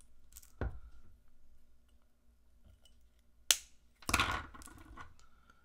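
Small side cutters snipping the excess component leads off a freshly soldered circuit board: two sharp snips, about half a second in and about three and a half seconds in, followed by a brief patch of clattering handling noise.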